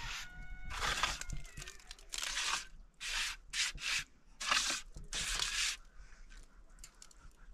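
Steel mason's trowel scraping and spreading cement mortar along the top of a concrete-block wall, in a run of short strokes of about half a second each that thin out near the end.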